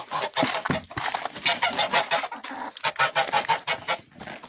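Domestic hens clucking together in a coop, a dense run of quick, stuttering calls.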